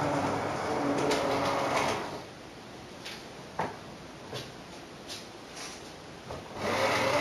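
Model railway train running on its track: a rumbling motor and wheel noise that fades about two seconds in, then a few light clicks, and the rumble returns loudly near the end as a train passes again.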